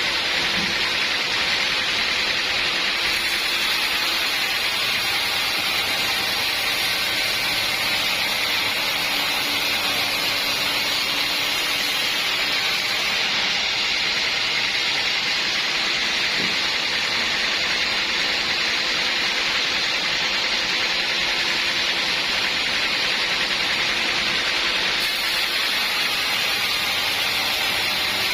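Sawmill machinery running: a steady, even hiss with no breaks.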